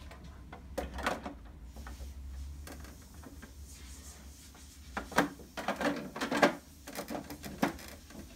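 Plastic side cover of a Brother PR embroidery machine being handled and fitted back onto the machine: light plastic knocks and clacks, a few at first and then a quick cluster of them a little past the middle.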